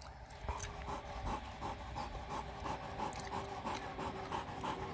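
A dog panting rapidly, about three pants a second, out of breath after chasing down and killing a raccoon.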